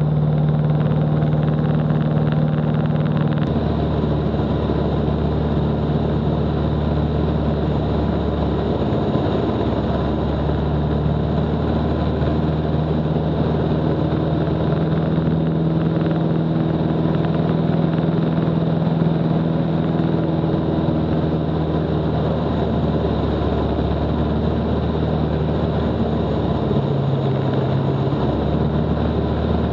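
Van's RV light aircraft's piston engine and propeller droning steadily, heard from inside the cockpit, the low hum shifting slightly a few times.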